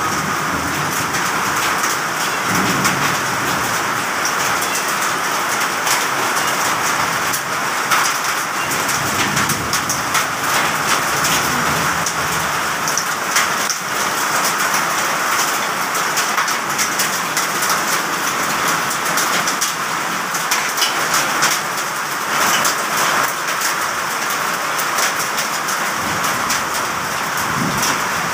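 Heavy rain pouring down steadily, with a dense scatter of sharp ticks from drops striking hard surfaces.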